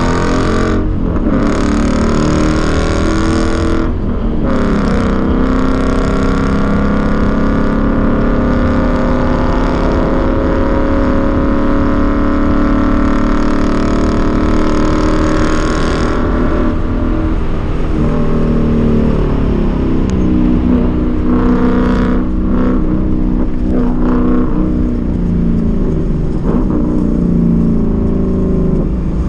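Ford Mustang engine heard from inside the cabin, pulling hard on track with brief breaks in the note near the start as the driver changes gear. The engine note climbs and holds high for about the first half, then drops off and rises and falls as the car slows for the corners, over steady road and wind noise.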